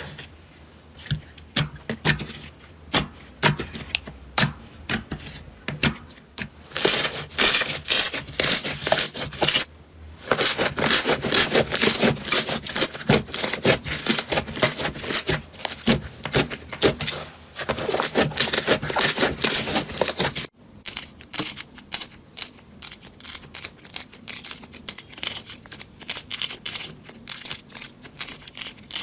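Slime being squeezed and pressed, making many sharp clicks and crackles that come thickest in the middle. After a brief break about two thirds through, the clicks are sparser.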